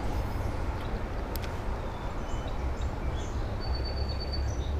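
Steady outdoor background noise: a low rumble under an even hiss, with a single faint click about a second and a half in.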